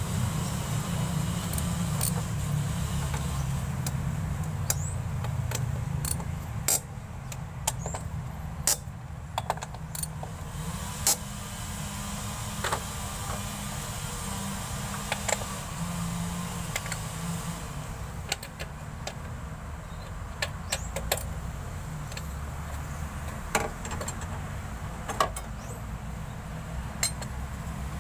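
Mitsubishi Montero engine idling steadily under the open hood, with scattered sharp clicks over the idle.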